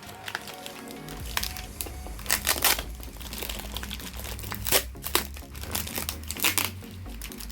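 Beyblade booster packaging being handled and unwrapped, crinkling in irregular bursts, with background music coming in about a second in.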